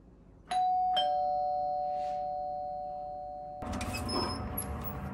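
Two-note chime doorbell rings a ding-dong, a higher note then a lower one about half a second apart, both ringing on and fading. About three and a half seconds in, the front door is unlatched and opened with a few clicks and a rush of outside noise.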